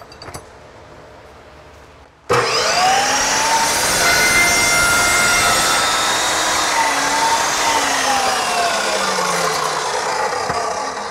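Evolution 14-inch chop saw with a Rage multipurpose blade starting up suddenly about two seconds in, its whine rising as the motor spins up, then cutting through thick cardboard tubing. The pitch dips and wavers while the blade is in the cut, then starts to fall and fade near the end as the saw winds down.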